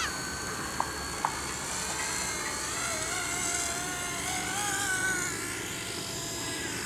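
Hubsan FPV Lynx, a small electric fixed-pitch RC helicopter, flying with a steady high motor and rotor whine whose pitch wavers gently up and down. Two short ticks about a second in.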